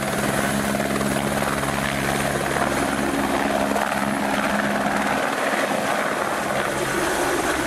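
Light helicopter running steadily as it lifts off and flies low: an even rotor-and-engine drone with a low hum.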